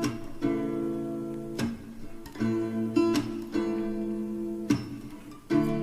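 Background song with acoustic guitar strumming chords, about one strum a second, and no singing.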